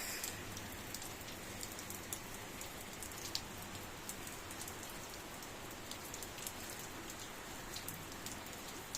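Steady rain falling: an even hiss with scattered sharp drop hits.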